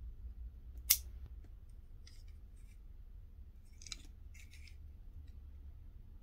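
Front trunk lid of a 1:64 Jada diecast VW Beetle clicking shut once, sharply, about a second in, followed by faint clicks and rubbing as the small metal car is turned over in the fingers.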